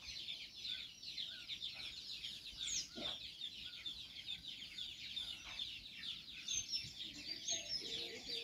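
Chicks cheeping constantly, a dense run of short, high, falling peeps, with a few lower chicken clucks in the second half.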